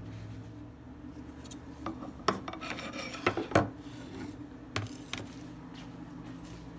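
A stainless-steel mesh strainer holding tomatoes and lettuce being handled and set down on a wooden cutting board: a scrape and rustle with a few knocks, loudest about three and a half seconds in. A steady low hum runs underneath.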